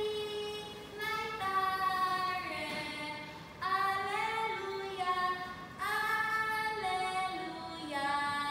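A high solo voice singing without accompaniment: long held notes in phrases about two seconds apart, each phrase stepping down in pitch.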